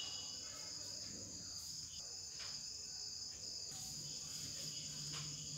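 Crickets chirring steadily, a constant high-pitched trill of background insect noise.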